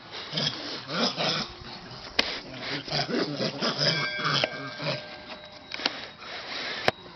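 A dog vocalizing in many short repeated bursts. There are two sharp clicks, one about two seconds in and one near the end.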